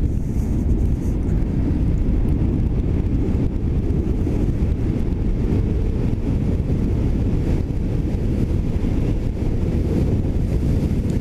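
Wind buffeting the microphone on an electric sportbike ridden at about 50 km/h: a steady, loud low rumble.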